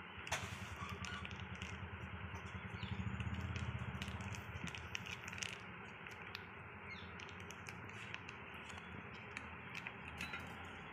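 Faint crinkling and small clicks of a plastic grease sachet being squeezed and handled, over a low rumble that swells about three seconds in.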